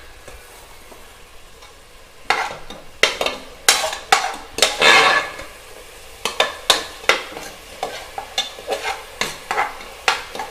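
Stainless steel slotted spoon stirring and scraping a frying onion-tomato masala in an aluminium pressure cooker, the oil sizzling. A quiet steady sizzle for about two seconds, then repeated metal-on-metal scrapes across the pan's base, several a second.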